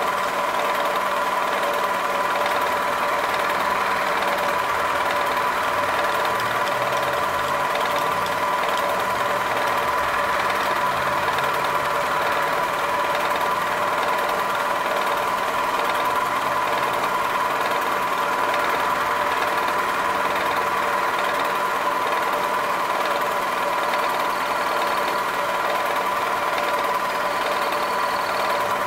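Milling machine running with an end mill cutting a metal part while the rotary table feeds the part round in an arc. The sound is a steady machining noise with a constant whine.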